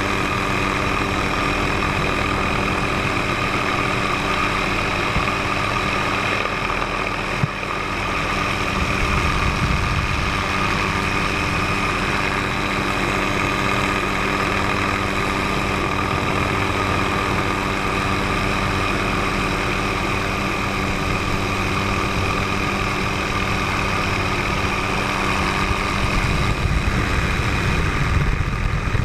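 Helicopter engine and rotor noise, running steadily with a constant multi-tone hum. There is a brief click about seven seconds in.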